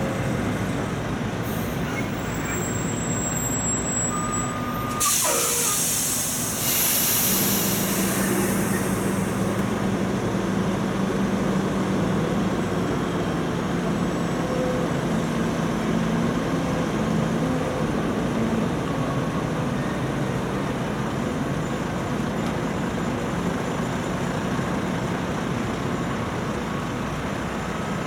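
Loaded Kenworth logging trucks running past with a steady diesel engine drone. Two sharp bursts of air-brake hiss come about five and seven seconds in.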